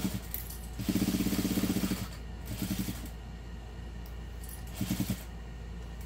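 Juki industrial sewing machine stitching in short bursts: about a second of rapid, even stitching, then two brief bursts, as the fabric is turned around a curve. A steady low hum runs underneath.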